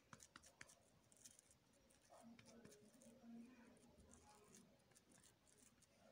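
Near silence, with faint scattered crackles and soft rustles from hands patting a chicken nugget patty and pressing it into breadcrumbs.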